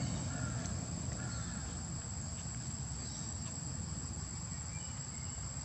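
Insects droning with one steady high-pitched note, over a low steady rumble, with a few short faint chirps.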